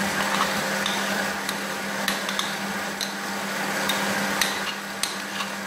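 Kitchen food processor motor running steadily as it whips eggs and sugar, with scattered light clinks of a spoon scraping soft butter off a plate.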